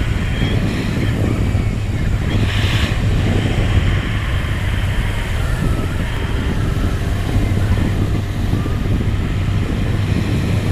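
Motorcycle engine running at a steady cruise, its low hum under heavy wind noise on the microphone.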